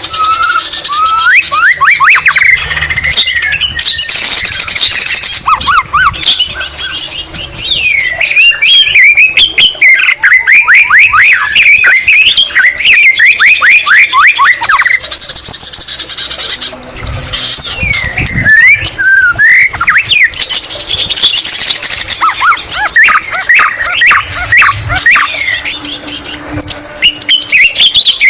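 White-rumped shama (murai batu) singing continuously and loudly, a rapid, varied song of fast trills and sweeping whistled notes. It is a shama whose song is filled with greater green leafbird (cucak ijo) phrases.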